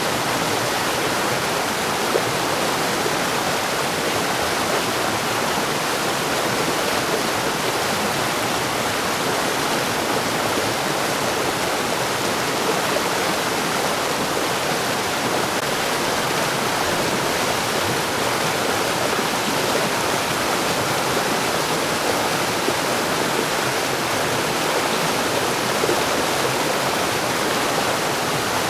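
Mountain stream rushing over rocks: a steady, full rush of water with no breaks.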